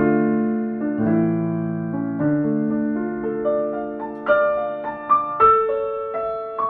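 Background piano music: slow, gently sustained chords that change about once a second, with a few higher single notes struck in the second half.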